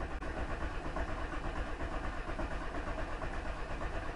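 Volkswagen Passat B3 engine being turned over by the starter with the ignition cut, so it does not fire, steady and pulsing. The cranking pumps oil into the freshly fitted oil filter before the first start after an oil change.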